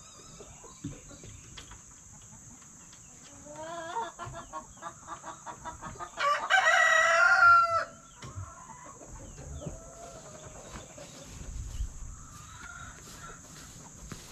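Chicken clucking in a steady run of about four clucks a second that breaks into a loud drawn-out squawk about six seconds in, its pitch falling away at the end.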